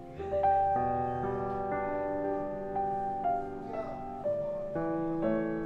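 Background music: a slow piano melody with held notes changing about every half second.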